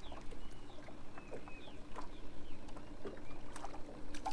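Water lapping against a small fishing boat's hull while a crappie is reeled in on a bent rod. A few sharp clicks come through near the end, over a faint steady hum.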